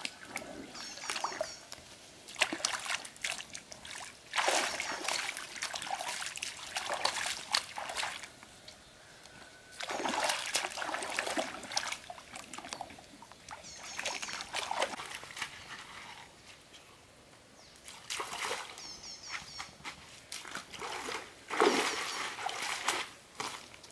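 Hands splashing and sloshing in shallow stream water, in irregular bursts of one to a few seconds with pauses between. Near the end, feet splash through the shallows.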